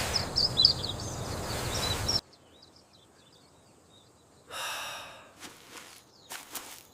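Steady rain-like hiss with high chirping birds, which cuts off suddenly about two seconds in. Faint chirping remains, and about halfway through comes one short breathy sound.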